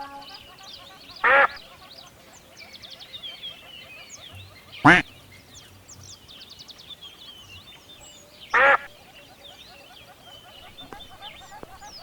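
A duck quacking three times: single short calls a few seconds apart. Many small birds chirp throughout, high and faint.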